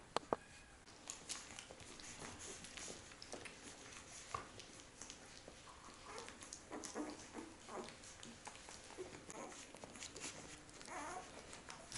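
Week-old Siberian husky puppies nursing: soft suckling and smacking clicks with small squeaks and whimpers that grow busier in the second half. Two sharp clicks right at the start.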